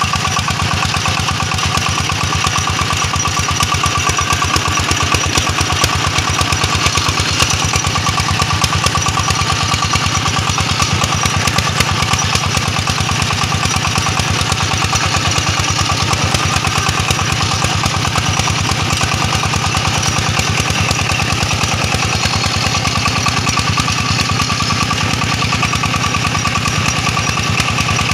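Single-cylinder diesel engine of a công nông two-wheel tractor chugging at a fast, even beat under load, hauling a trailer of rice sacks over a slippery mud track. The beat stays steady throughout.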